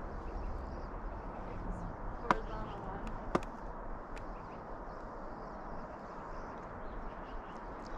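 Low steady outdoor rumble on the microphone, broken by two sharp clicks a little over a second apart, about two and three seconds in. The first click rings briefly.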